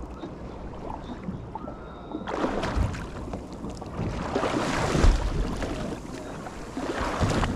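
Wind and water noise aboard a small boat at sea, with no clear tone. It turns louder and fuller about two seconds in and swells twice more.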